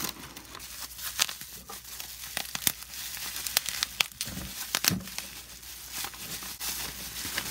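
Plastic bubble wrap crinkling and rustling as it is pulled off a small plastic part by hand, with irregular sharp crackles and a few louder snaps.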